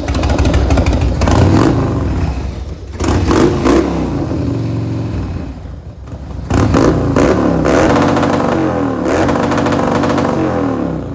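Harley-Davidson Dyna's Twin Cam 88 V-twin running loud through a Bassani exhaust, revving up and down. It eases off briefly about halfway through and picks up again a second later.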